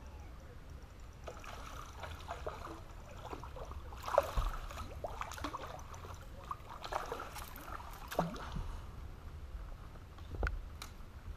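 Water splashing and lapping against a bass boat's hull over a steady low rumble, with a sharp click about ten seconds in.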